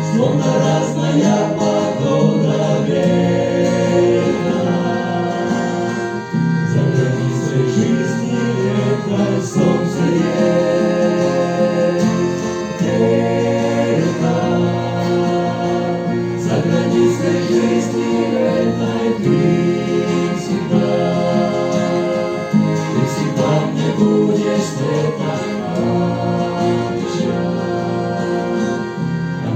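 Christian song: several voices singing in harmony over instrumental accompaniment, held chords that change every few seconds.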